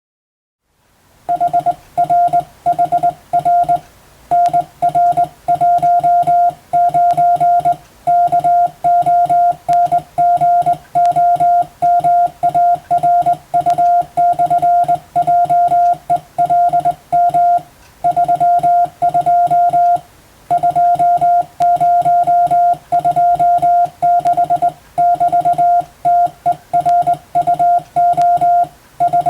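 Morse code: a steady tone of about 700 Hz keyed on and off in dots and dashes, with short gaps between letters and longer ones between words. It starts about a second in.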